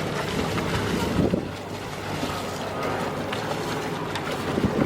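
Wind buffeting the microphone over the wash of open water around a boat.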